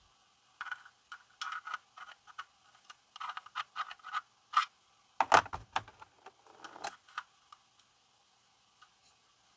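White plastic pegs of a 1969 Nintendo Chaotic Cube puzzle scraping and clicking as they are slid into the holes of its red plastic cube, in a run of short scratches. A louder knock comes a little past five seconds in.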